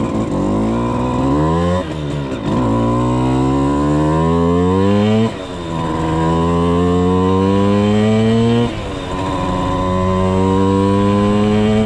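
Simson two-stroke moped engine pulling hard under acceleration, its pitch climbing and then dropping at each gear change, about four shifts in all.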